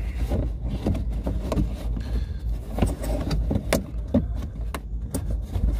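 Plastic wheel-arch liner and its clips being handled and pushed back into place behind a car's front wheel: a string of irregular clicks, knocks and rustles over a steady low rumble.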